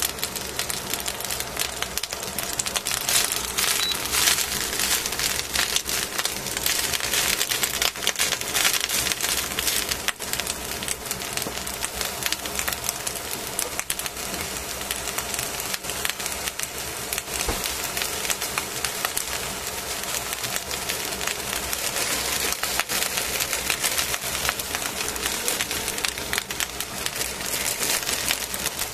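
Cabbage and carrot crackling and sizzling as they cook in a stainless steel pot: a dense, steady crackle of many small pops that swells slightly now and then.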